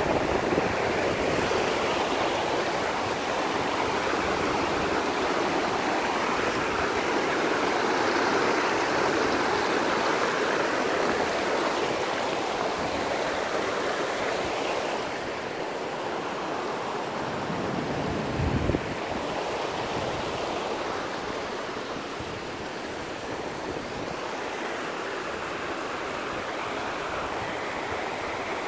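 Alpine mountain river rushing over boulders and stones: a steady, even rush of water, a little quieter from about halfway through, with one brief low thump about two-thirds of the way in.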